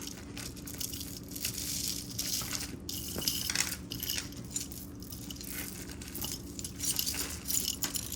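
Small beads and costume jewelry clicking and rustling as they are handled, in irregular little clinks and crinkles over a faint steady low hum.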